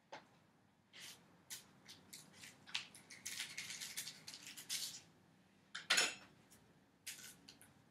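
Cardboard and small craft items handled on a tabletop: scattered rustles and scrapes, a longer stretch of rubbing in the middle, and one sharp knock about six seconds in.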